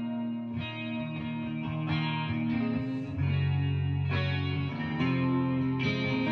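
Background instrumental music with guitar, its chords changing every second or so over a steady bass.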